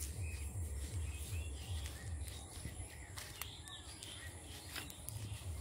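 Outdoor ambience of birds chirping faintly, over a low, uneven rumble that is strongest at the start and again near the end, with a few sharp clicks around the middle.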